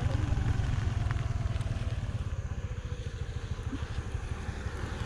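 Low, rapidly fluttering rumble of a moving road vehicle, easing off gradually.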